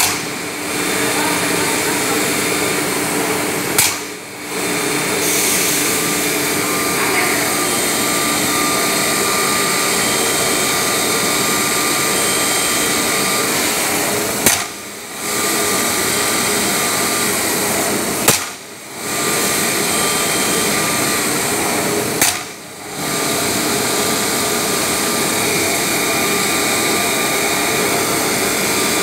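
Holztek CNC router machining a cabinet panel: a steady cutting and spindle noise, broken four times by a sharp click and a short drop in level.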